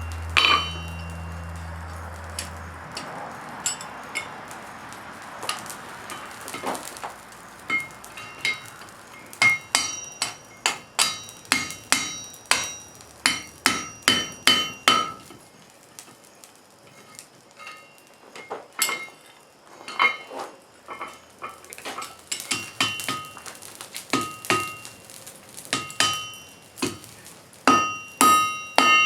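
Hand hammer striking hot wrought iron on an anvil while drawing out the bar, runs of about two blows a second with a ringing note after each, the blows sparse for a few seconds in the middle. A low hum and a rush of air noise fill the first few seconds.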